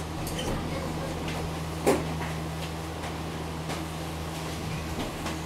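A metal spoon stirring a thick chicken masala in a metal cooking pot, clinking and knocking against the pot several times, loudest about two seconds in, over a steady low hum.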